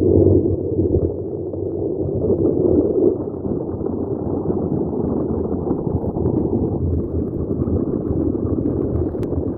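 Steady rumble of a vehicle travelling along a road, with wind buffeting the microphone; a small click near the end.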